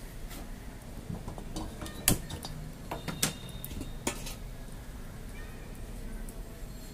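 Light metallic clinks and knocks from an empty metal kadhai on a gas stove, about half a dozen sharp separate ticks over the first four seconds, the loudest about two seconds in, over a low steady background hum.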